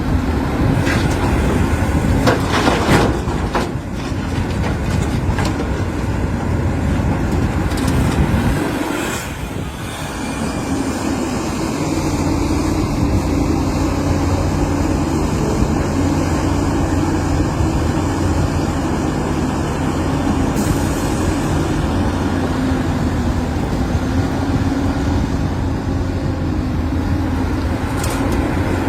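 Caterpillar 350 hydraulic excavator's diesel engine running steadily, with bursts of clatter and knocking about three seconds in, around nine seconds in, and near the end.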